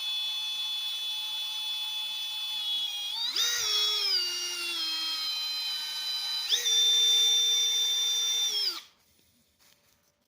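Small handheld electric power tool motor running with a high whine. About three seconds in it speeds up, then its pitch slowly sags. It speeds up again, holds, and stops abruptly near the end.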